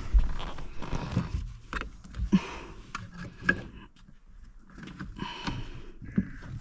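Hand tools working on a car's steering column under the dashboard: a few sharp metal taps, roughly a second apart early on, with scraping and clatter between.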